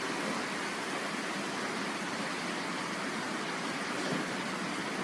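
Steady rain falling, an even hiss with no distinct drops or strokes.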